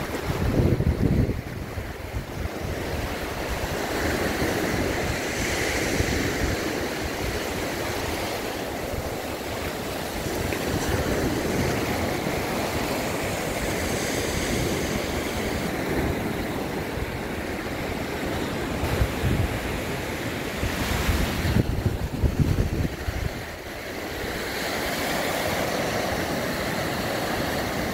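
Small sea waves breaking and washing up onto a sandy shore, with gusts of wind buffeting the microphone, strongest about a second in and again late on.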